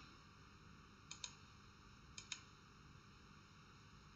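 Faint computer mouse clicks in near silence: two quick pairs of clicks, about a second in and again about two seconds in, and a single faint click near the end.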